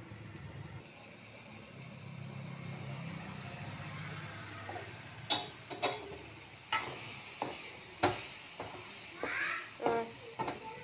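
Sharp clicks and knocks of a utensil against a metal pan of spinach curry as it is uncovered and stirred, coming irregularly from about five seconds in, after a steady low hum.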